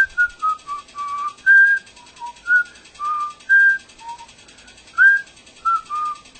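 A person whistling a simple, wandering tune: a single line of short notes stepping up and down, about two a second.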